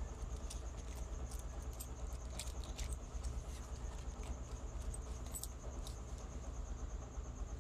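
Insects trilling steadily at a high pitch over a steady low rumble, with scattered light clicks.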